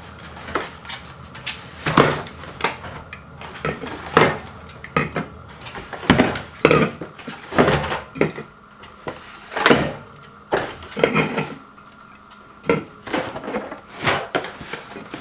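Aluminum soda cans being handled, knocking and clinking against each other and a hard surface in irregular sharp knocks.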